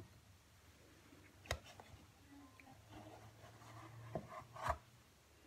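Faint room tone with a few light knocks and small handling noises: one about one and a half seconds in, then two close together near the end.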